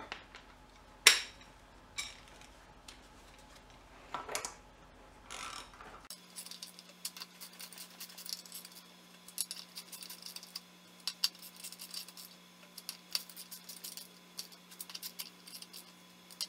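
Metal clinks and knocks of steel bolts and tools on a flexplate, with one sharp clink about a second in, followed by a ratchet wrench clicking in quick, irregular runs as the flexplate bolts are snugged into the crankshaft before torquing.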